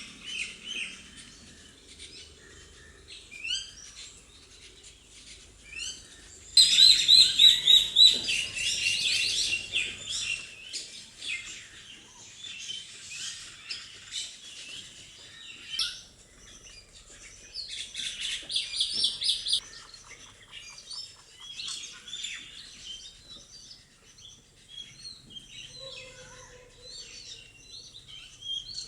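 Birds chirping and twittering in rapid short calls, with two loud, dense bursts of chirping: one about a quarter of the way in and one around two-thirds of the way through.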